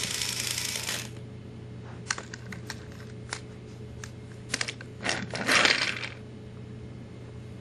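A battery-operated TrackMaster toy train's motor whirs along plastic track and stops about a second in. Then come scattered light clicks and clacks of the plastic toy engines being handled, and a short rolling scrape near the end as an engine is pushed along the track by hand.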